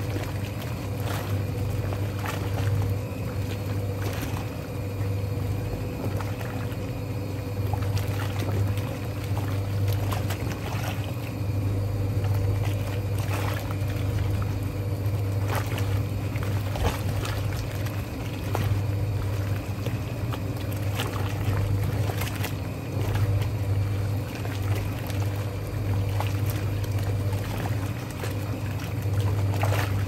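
Vintage Hoovermatic twin-tub washing machine washing a load of towels in hot soapy water: a steady low motor hum under continuous sloshing and splashing of the churning water.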